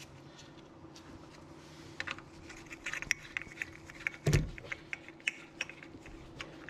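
Accessory-belt idler pulley being worked off by hand: a run of light, irregular metal clicks and taps, with one dull knock about four seconds in.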